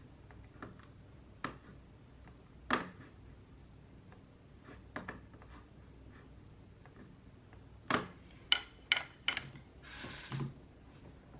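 Sparse clicks and knocks of small objects handled and set down on a desk, with a quick run of four clacks about eight seconds in, then a short rustle near the end.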